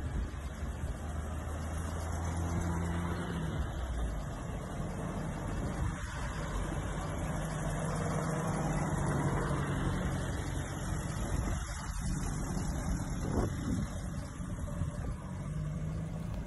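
Willys flatfender Jeep driving on the road, its engine running steadily with the hum stepping up and down in pitch as the speed changes.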